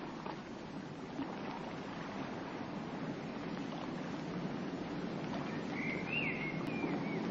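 Steady rushing outdoor ambience of a river, slowly growing louder, with a brief bird chirp about six seconds in.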